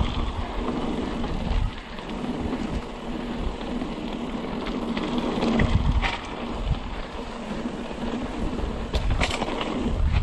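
Mountain bike riding a dirt trail: tyres rolling over the ground and the bike rattling over bumps, with wind buffeting the microphone as it goes.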